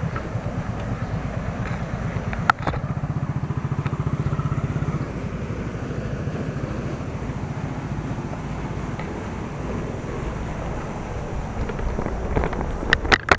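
Motorcycle engine running on a dirt track as a low, pulsing hum, strongest in the first few seconds and weaker as it moves off. There is a sharp click about two and a half seconds in and a few sharp knocks near the end.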